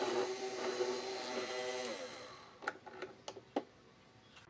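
Bench hollow-chisel mortiser's electric motor running with a steady hum, then winding down and fading about two seconds in. Then come five or so sharp wooden knocks as the workpiece is taken out of the machine's vise.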